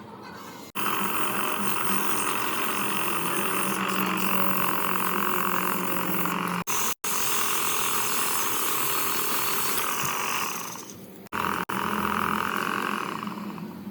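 A small electric motor tool running steadily with a buzzing whir, broken by several sudden cuts.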